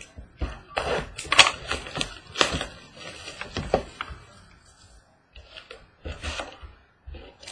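Handling and opening a box of trading cards: irregular crackling and clicking of cardboard and packaging, busiest in the first few seconds, then a few softer taps.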